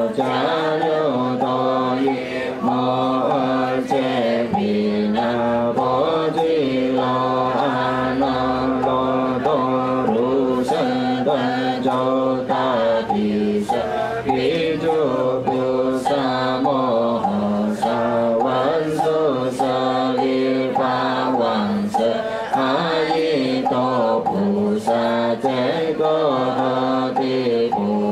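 Mourners chanting in unison from their booklets: a continuous group chant that moves between a few notes, with a light regular tap about once a second through the middle.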